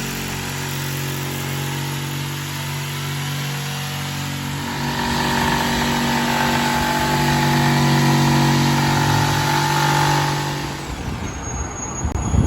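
An engine running steadily; its pitch shifts about four seconds in, and it stops near the end.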